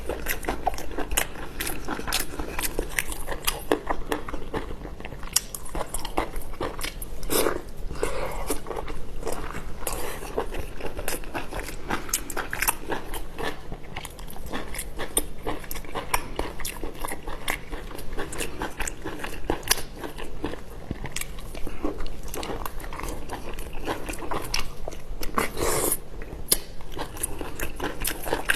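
Close-up sounds of seafood being eaten: continuous biting, crunching and chewing, with many quick sharp clicks.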